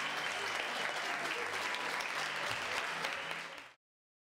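Audience applauding: many hands clapping at once, fading out and ending abruptly in silence near the end.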